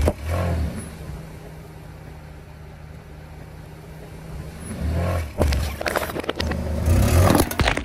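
A car's tyre rolling over and crushing plastic soda bottles, with crunching and crackling, under the steady low hum of the car's engine. Crushing bursts come at the start, about five seconds in, and loudest near the end.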